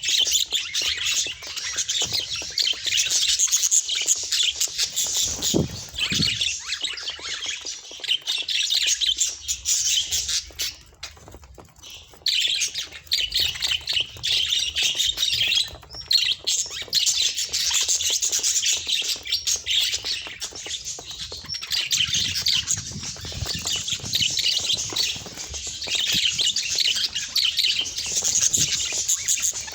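Budgerigars chattering: a dense, continuous stream of high-pitched calls that breaks off briefly about 11 and 16 seconds in.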